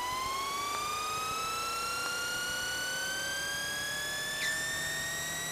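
Eurocopter EC135's turbine engine spooling up during start: a steady whine rising in pitch, its climb slowing toward the end.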